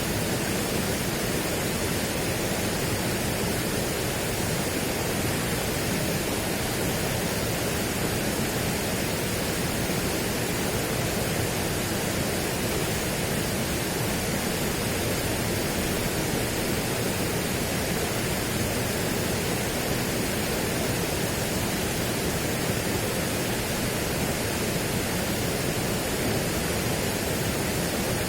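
Steady, even rushing noise that does not change at all, with no distinct events.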